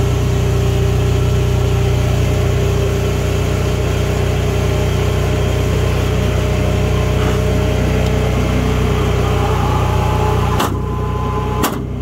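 Engine-driven welder running at a steady idle, just after being started. Near the end it settles slightly and there are two sharp clicks.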